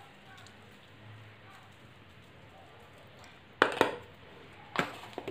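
A quiet stretch, then sharp clinks of kitchen utensils: a couple about three and a half seconds in and two more near the end.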